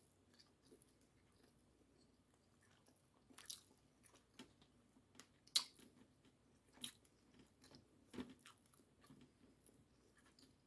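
A person chewing a whole piece of sushi with the mouth close to the microphone: faint, irregular wet smacks and clicks, about one every second, the sharpest about halfway through.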